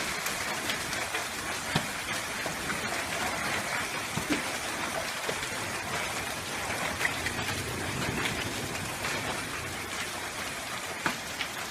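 Steady heavy rain from a thunderstorm as it eases off, with a few scattered sharp hailstone hits.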